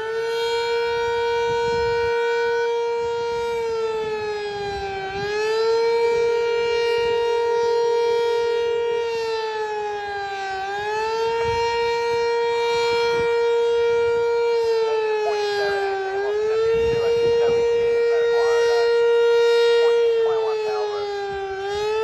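Fire company house siren sounding a loud, steady wail that dips in pitch and swings back up about every five and a half seconds. The siren has been activated to call out the fire company for a medical emergency, an infant in cardiac arrest.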